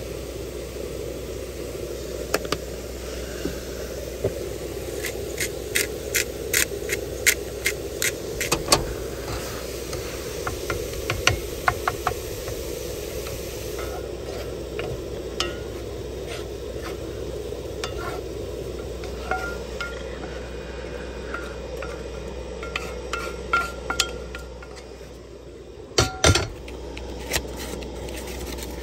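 Ground bison sizzling in a cast-iron skillet on a gas camp-stove burner, stirred with a wooden spatula that scrapes and taps against the pan in a run of sharp strokes from about five to twelve seconds in. Near the end come two or three loud knocks.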